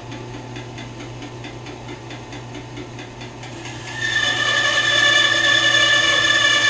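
WEN 10-inch benchtop bandsaw (model 3962) running with a steady hum. About four seconds in, the blade enters a camphor log and the sound gets louder, with a high steady whine as it rips a long cut.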